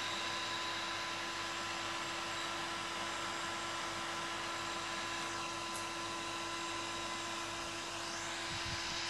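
Computer cooling fans running on a powered-up open-bench PC: a steady whir with a few constant tones over an even hiss.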